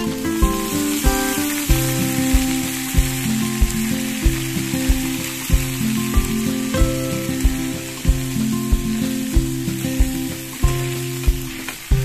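Beetles sizzling as they hit hot oil with garlic and onion in a frying pan, a steady hiss that starts as they are tipped in. Acoustic guitar music with a steady beat plays over it.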